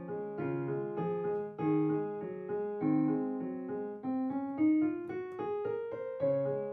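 Background music: a light keyboard tune of evenly paced notes and chords.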